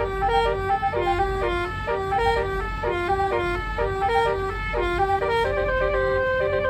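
Basuri (telolet) multi-tone musical car horn playing a repeating tune in quick stepped notes over a low rumble. Near the end the notes turn into longer held tones.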